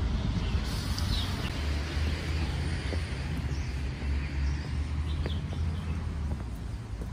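Outdoor ambience: a steady low rumble, with birds chirping now and then and a few light footsteps on stone steps.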